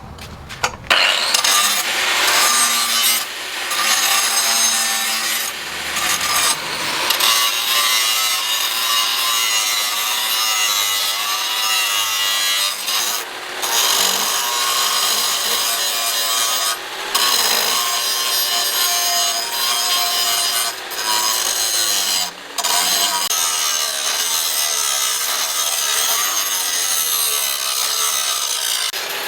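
An abrasive power tool grinding steadily against a workpiece, its pitch wavering under load, lifted off briefly a few times.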